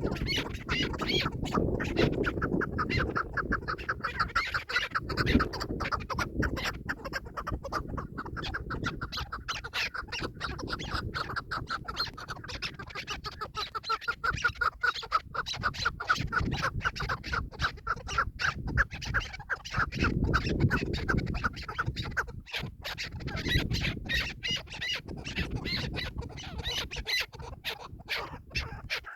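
Chukar partridge calling: a long run of rapid, repeated clucking notes.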